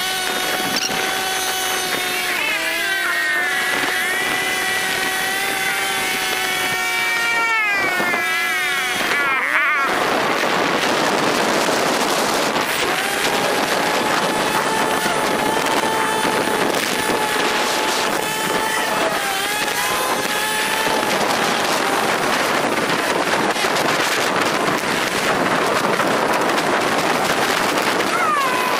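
Scooter engine and drivetrain running at road speed with a steady whine. The whine falls steeply in pitch about nine seconds in as the scooter slows. After that, a rushing wind noise on the microphone covers a fainter steady engine tone.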